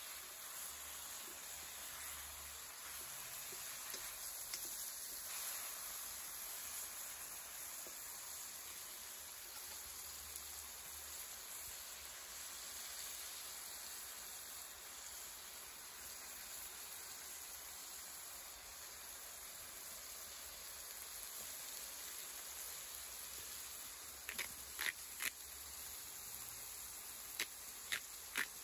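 Chicken pieces sizzling steadily in hot oil in an enamelled pan. Near the end there is a quick run of sharp clicks from a pepper mill being turned to grind black pepper over the pan.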